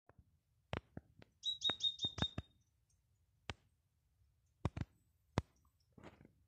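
A bird's quick run of high chirps about a second and a half in, among scattered sharp clicks from a cat lapping water out of a stone trough.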